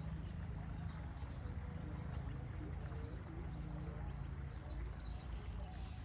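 Riverbank ambience: scattered short bird chirps over a steady low rumble.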